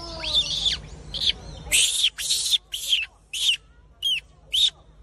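A young macaque giving a rapid series of short, high-pitched arching calls, about two a second.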